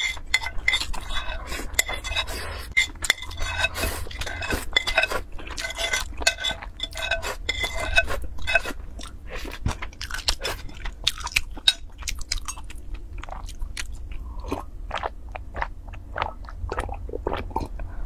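Close-miked eating sounds: wet chewing and mouth clicks, with a metal spoon scraping and clinking against a ceramic bowl as the last of the noodles is scooped up.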